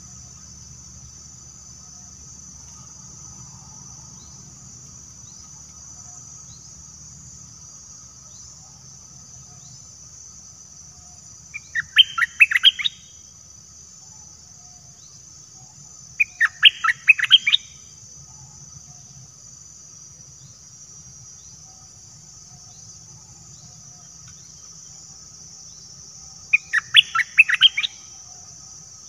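A bulbul sings three short phrases of quick, bright notes, each about a second long, with long pauses between them. A steady high-pitched insect buzz runs underneath.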